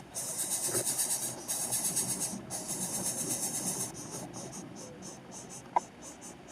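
Cicadas buzzing high in long pulses with short breaks, the pulses getting shorter and quicker after about four seconds. A single short, sharp sound cuts through near the end.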